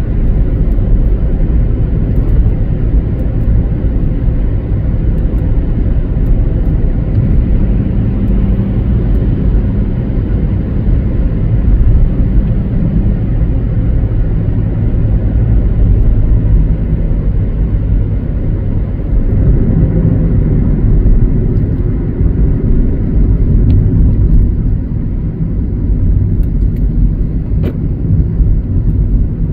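A car being driven, with steady road and engine noise heard as a low, even rumble.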